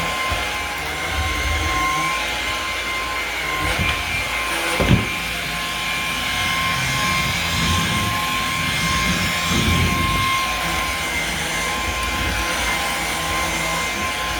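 Lupe cordless vacuum cleaner running, its motor giving a steady high whine over the rush of suction. There is a sharp knock about five seconds in.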